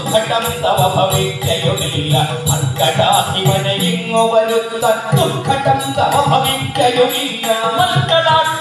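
Ottan Thullal music: a man singing the verse in a chanting style, accompanied by ilathalam hand cymbals keeping a steady beat and drumming.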